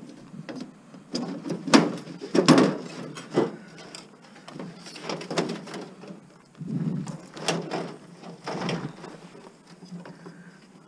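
Sheet-metal casing of an over-the-range microwave clattering and knocking as it is pried and pulled apart by hand, with a string of separate metallic knocks and scrapes.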